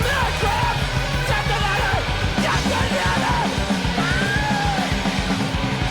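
Punk rock music: a fast, driving beat of drums and bass with a shouted vocal line over it.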